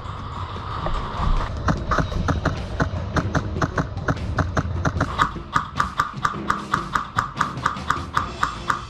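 Airsoft rifle firing a rapid string of single shots, about three or four a second, each a sharp mechanical crack. The string begins about a second and a half in and runs until just before the end.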